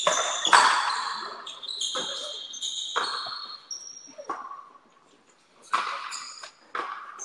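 Frontenis rally: the hard rubber ball cracks off racquets and the front wall about once a second, each hit echoing off the walls. High squeaks sound between several of the hits, and there is a short lull about five seconds in.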